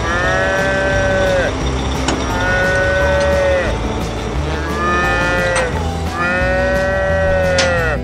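Cows mooing: four long moos, each holding a steady pitch and then dropping at the end, over background music.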